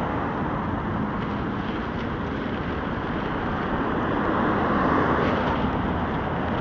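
Road traffic on a multi-lane street: a steady noise of car tyres and engines, swelling as a car passes close about four to five seconds in.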